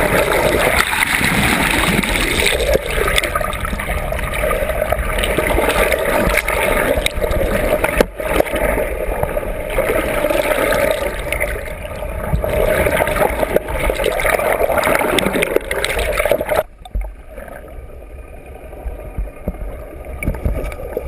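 Seawater rushing and gurgling over an underwater camera as it moves among swimming dolphins, with one sharp knock about eight seconds in. Near the end the wash suddenly turns quieter and duller.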